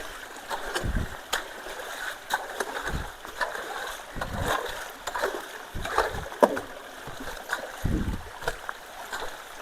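Water running and splashing at a partly unclogged culvert, with scattered knocks and several low thumps as debris is worked loose.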